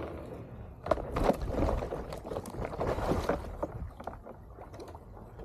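A stand-up paddleboard and paddle breaking through thin river ice: irregular cracking and crunching of ice with paddle splashes, loudest in the first half and easing off toward the end.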